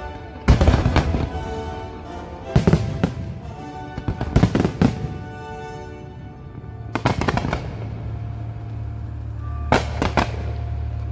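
Aerial fireworks shells bursting in clusters of sharp bangs about every two seconds, with crackling, over a musical show soundtrack. A steady low drone joins the music about eight seconds in.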